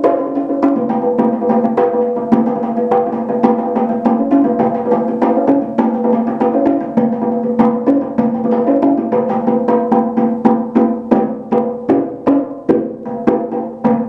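Pair of bongo drums played with bare hands in a fast improvised pattern, about five strokes a second, the low and high drum heads each ringing at their own pitch with uneven accents.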